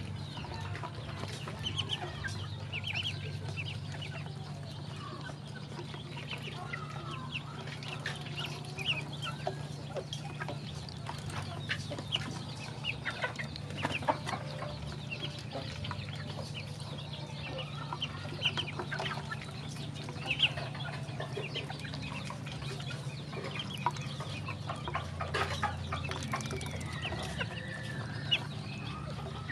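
A brood of ducklings peeping and chirping as they feed, with scattered sharp taps of bills pecking in a split-bamboo trough. A steady low hum runs underneath.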